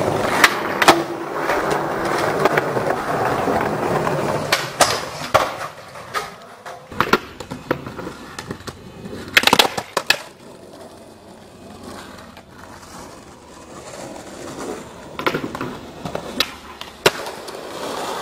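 Skateboard wheels rolling over concrete and asphalt, loud for the first few seconds and quieter after, with sharp clacks scattered through as tricks are popped and landed.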